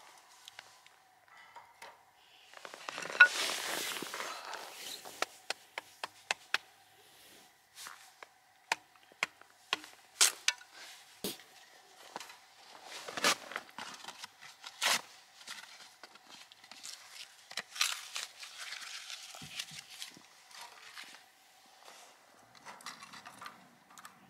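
Wooden kindling sticks knocking and clacking against a small folding metal fire pit as they are placed in it one by one, in irregular sharp knocks, with two longer stretches of rustling.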